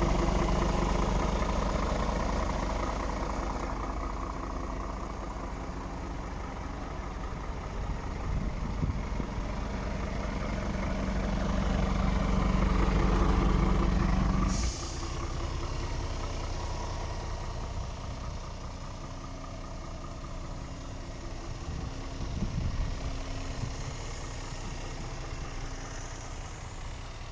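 Scania R500 truck's diesel engine idling steadily. About halfway through, a short burst of hiss is heard, and after it the engine sounds much quieter.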